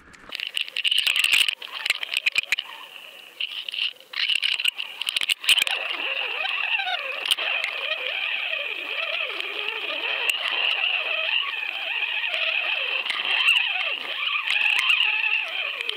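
Underwater sound picked up by a GoFish Cam fishing camera on the line: sharp clicks and knocks for the first few seconds, then a steady hiss of water with wavering bubbling sounds.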